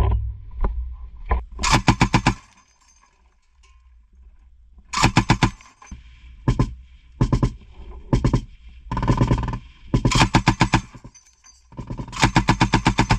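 DShK 12.7 mm heavy machine gun firing from inside a covered trench dugout, in short bursts of a few rounds at about ten shots a second. There is a pause of a couple of seconds early on, then a string of short bursts and a longer one near the end.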